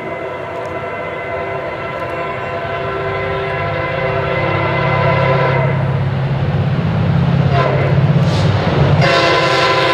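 Approaching MARC commuter train's diesel locomotive sounding its multi-chime air horn for the grade crossing: one long blast that stops about five and a half seconds in, then a second blast near the end. Under it the locomotive's engine and wheels rumble, growing louder as the train comes closer.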